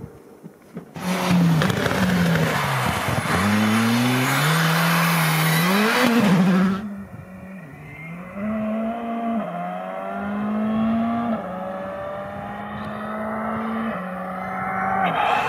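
Skoda Fabia Rally2 Evo rally car's turbocharged four-cylinder engine revving hard through rapid gear changes as it passes close by, with loud tyre and road noise. From about seven seconds in, a rally car engine rises and drops in pitch with each gearshift as it comes closer.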